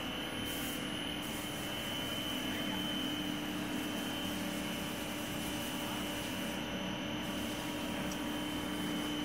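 PVC sheet extrusion line running: a steady machine hum with a thin high whine over an even rushing noise, from the line's motors and roll drives.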